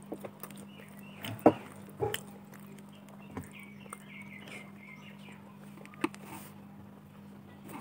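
Quiet sounds of eating rice by hand: a few soft knocks and mouth clicks, the loudest about a second and a half in. About halfway through, a bird chirps a quick run of short high notes in the background, over a steady low hum.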